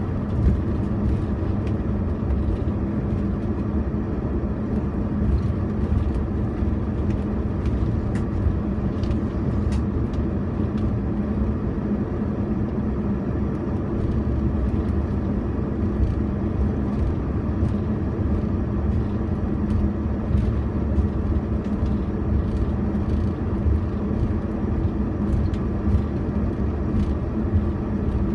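Car driving steadily on a winding road, heard from inside: a continuous low rumble of engine and tyres on asphalt with a steady hum, and a few faint ticks.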